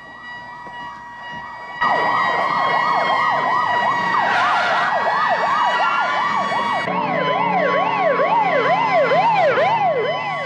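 Several police car sirens wailing together, starting suddenly about two seconds in with a fast rising-and-falling yelp. A second, slower warble joins about seven seconds in, over a steady high tone.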